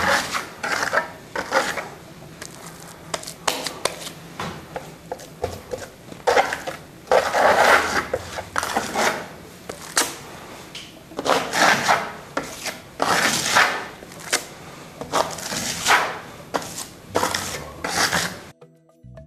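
Steel trowel scraping and spreading plaster across a wall in irregular, repeated strokes, some short and some drawn out, as the plaster is worked on randomly.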